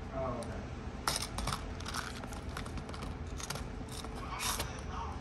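Small clear plastic boxes of nail charms and rhinestones being handled: scattered clicks and knocks of plastic with the little charms rattling inside, the sharpest click about a second in.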